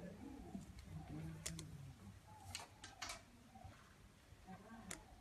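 A few sharp, scattered clicks over a faint murmur of voices.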